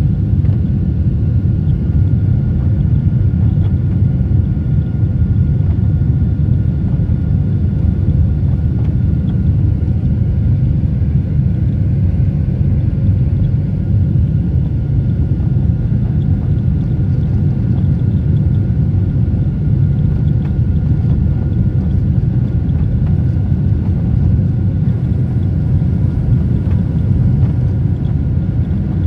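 Jet airliner cabin noise during the climb after takeoff: a steady, loud, low rumble of engines and airflow heard through the fuselage, with a faint steady whine above it.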